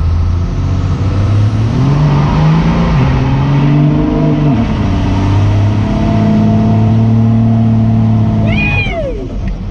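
Cummins diesel engine of a Dodge flatbed farm truck, heard from inside the cab, pulling hard at full throttle through a rolling burnout. Its pitch climbs in steps, drops at a gear change about halfway through, climbs and holds again, then backs off near the end with a short falling whistle.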